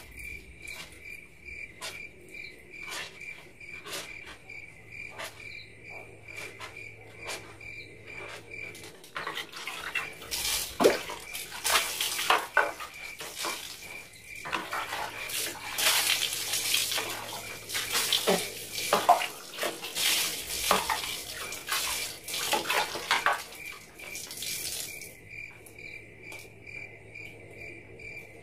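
Crickets chirping steadily, with water from an outdoor tap splashing into a plastic bucket and clattering knocks from the bucket and dipper from about nine seconds in until near the end.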